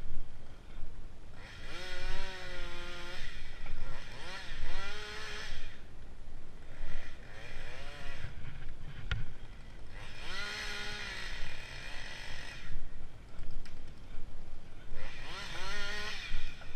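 Saw chain cutting wood in five bursts of about two seconds each, its pitch rising and dipping as it bites and frees, over a steady low engine hum.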